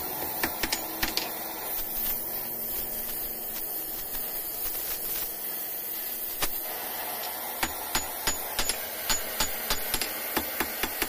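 Hand hammer striking a red-hot rebar end on a steel anvil: a few blows near the start, then a steady hiss from the gas torch heating the rod, then a run of quick ringing blows, about three a second, in the second half.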